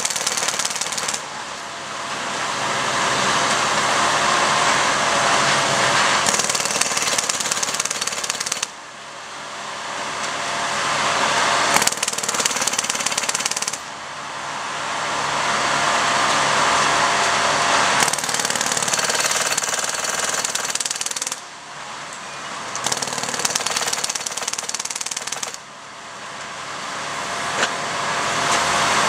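Rapid, loud machine hammering from track-repair equipment driving or working on rail ties, in runs of several seconds broken by brief pauses about five times.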